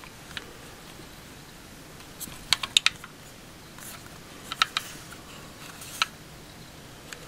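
Sharp clicks from the parts of a Walther PPQ M1 9mm pistol being handled: a quick run of four or five clicks about two and a half seconds in, two or three more a little past the middle, and a single click about six seconds in.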